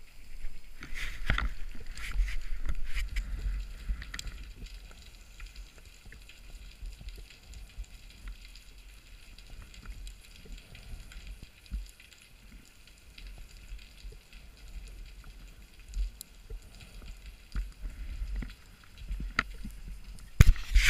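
Muffled underwater sound heard through a camera's waterproof housing: a low rumble of water and diver movement, heavier in the first few seconds, with scattered clicks and a sharp knock near the end.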